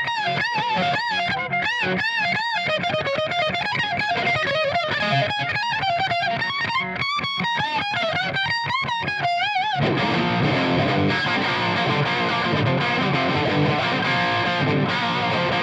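Electric guitar played through a Marshall tube amp: single-note lead lines with bends and vibrato, then about ten seconds in, dense overdriven chord riffing.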